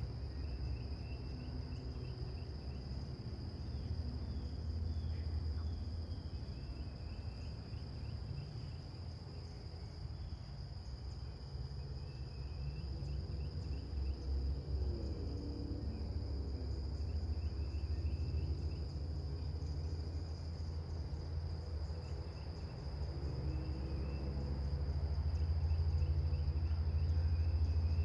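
Crickets trilling steadily on one high tone, with short bird chirps every few seconds over a low rumble of distant road traffic that swells near the end.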